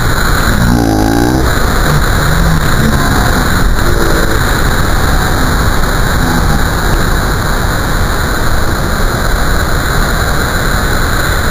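Heavy surf breaking and washing through white water over rocks: a loud, steady rush of noise with no let-up.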